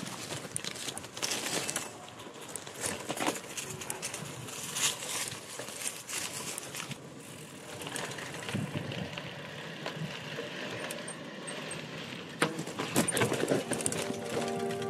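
Gravel bike ridden over a bumpy dirt trail: tyres rolling over rough ground with the bike rattling, jangling and clicking over the bumps. Music begins to come in near the end.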